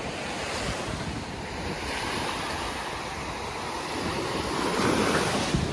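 Gulf of Mexico surf: waves washing onto the beach in a steady rush that swells as a wave breaks near the end, with wind buffeting the microphone.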